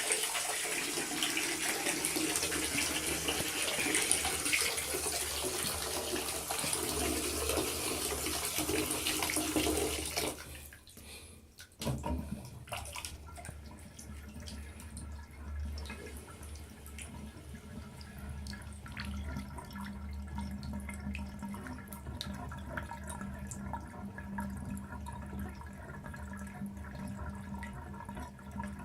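Water running steadily from a plumbing fixture, shut off about ten seconds in. A single knock follows, then a steady low hum with scattered small ticks.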